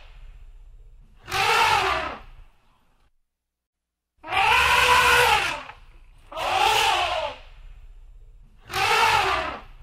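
African elephant trumpeting: four loud calls of about a second each, each rising and then falling in pitch, with short pauses between them.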